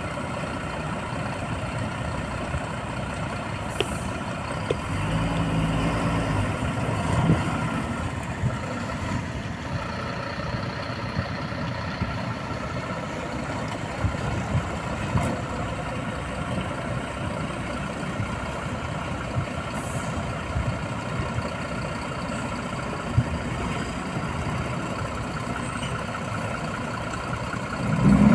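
Diesel engines of a hydraulic excavator and a tipper truck running steadily during loading. The engine note swells for a couple of seconds about five seconds in. A few sharp knocks of rock landing are scattered through.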